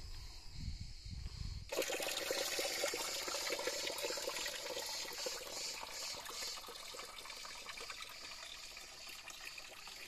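Water trickling steadily from the brass tap of an old stone fountain and splashing into its stone basin, starting abruptly about two seconds in after a low rumble.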